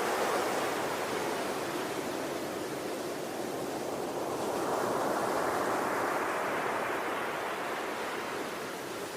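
Ocean surf: a continuous wash of breaking waves that swells about halfway through and eases off again near the end.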